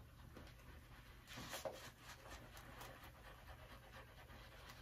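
Faint, soft swishing of an Ever-Ready 200 shaving brush working soap lather over the beard, in uneven strokes.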